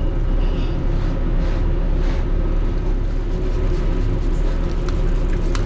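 Steady low machine hum and rumble, with faint soft rustles of a rag wiping a grimy metal panel and a couple of brief ticks near the end.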